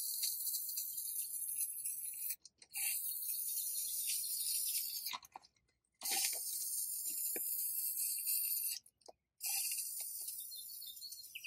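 Aerosol spray-paint can spraying in four long hissing bursts of about two to three seconds each, with short pauses between them.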